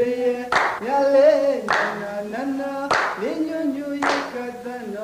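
Music: a singing voice holds and slides between notes over sharp hand claps, struck in a steady rhythm about once every 1.2 seconds.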